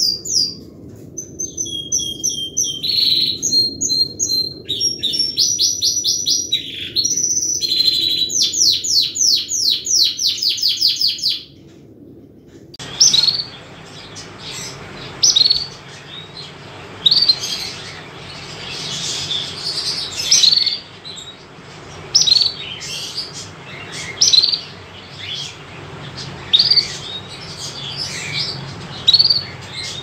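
Canary singing: a run of repeated notes and fast rolling trills for about eleven seconds. After a break, a canary gives short single chirps, roughly one every second or two, over a steady low background hum.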